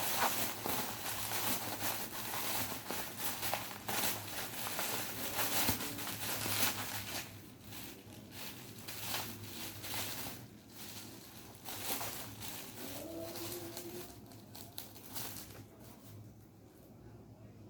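Parcel packaging being handled and unwrapped: dense crinkling and rustling for about the first seven seconds, then sparser rustles that grow quieter near the end.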